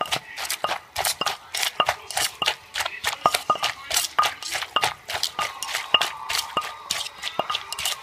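Wooden pestle pounding cucumber salad in a clay mortar: a fast, steady run of knocks, several a second.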